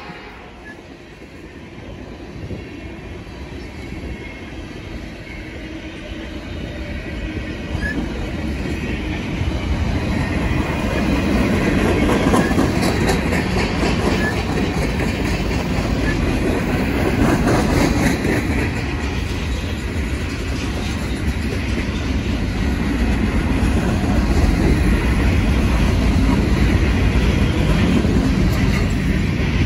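Freight cars of a passing train (tank cars and covered hoppers) rolling by, their steel wheels rumbling on the rails. The noise grows louder over the first ten seconds or so, then holds steady.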